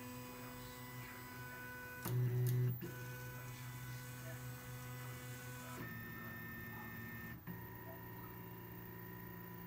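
Stepper motors of a colinear tripteron 3D printer driving its arms through a series of moves: a steady whine of several tones that jumps to a new pitch abruptly as each move begins, with a louder, lower hum for about a second near the start.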